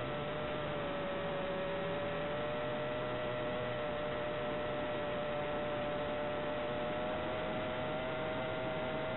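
Steady hiss of an analog FPV video link's audio channel, with a steady whine underneath that sags a little in pitch and then recovers.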